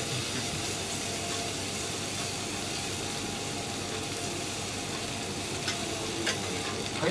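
Cubes of Chateaubriand beef tenderloin sizzling steadily on a hot teppanyaki steel griddle, with two light metallic clicks near the end.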